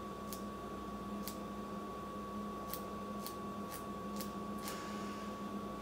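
A bobby pin is flicked across the bristles of a spoolie wand wet with root touch-up spray, giving faint light ticks, about seven over a few seconds. A steady faint hum runs underneath.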